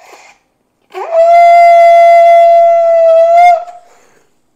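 Ram's-horn shofar blown in one long blast: the note slides quickly up to a steady, loud pitch, is held for about two and a half seconds, then lifts slightly just before it stops.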